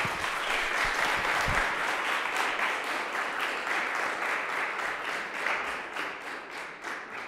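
Applause from a small seated audience, a dense patter of many hands clapping that dies away near the end.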